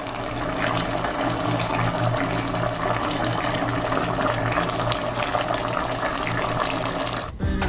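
Fish and squash simmering in coconut milk in a pot: a steady bubbling and crackling boil over a low hum. It cuts off just before the end.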